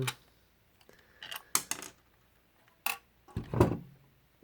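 Clicks and knocks of a diecast model car's plastic and metal parts being handled and separated during disassembly, with a duller, heavier thump about three and a half seconds in.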